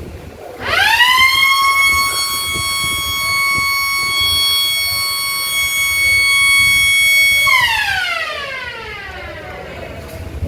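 School siren winding up quickly to a steady high wail, holding it for about seven seconds, then winding down in a long falling glide.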